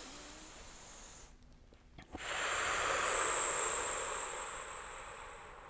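Slow, audible breathing close to the microphone for a paced breathing exercise: one breath fades away early on, then a louder breath begins with a click about two seconds in and slowly trails off.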